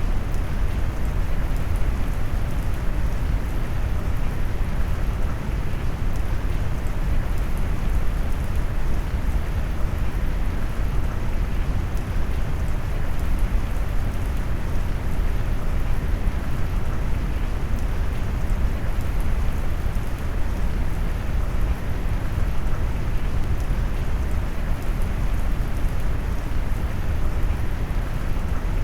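Steady rain mixed with brown noise: a deep, even rushing hiss, heaviest in the low end and muffled in the highs, unchanging throughout.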